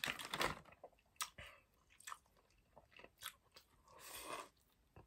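A plastic food wrapper crinkles briefly at the start, then a person bites into a bread bun and chews close to the microphone, with a few sharp mouth clicks and smacks.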